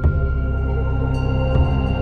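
Background music with held tones over a low drone, and a sharp hit right at the start.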